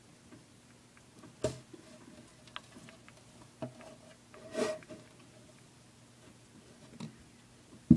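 A few scattered light knocks and taps from a hand reaching into a glass toad tank, with a sharp loud click just before the end, over a faint steady hum.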